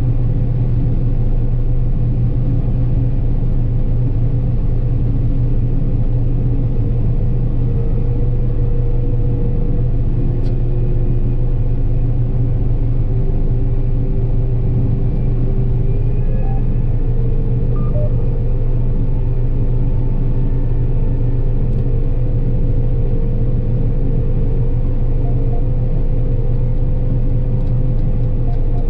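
John Deere 9770 combine running steadily while harvesting soybeans: a constant machine drone with a steady low hum and a fainter higher whine that barely changes.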